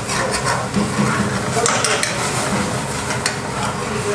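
Chopped tomatoes frying and sizzling in an aluminium frying pan over a gas burner. A spatula stirs and scrapes them, clinking against the pan several times.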